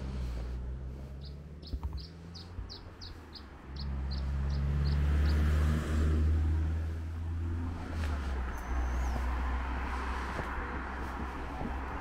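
A steady low engine hum, most likely the parked motorhome idling, growing louder about four seconds in. Early on a small bird gives a quick run of about a dozen high chirps, and a single high bird note comes later.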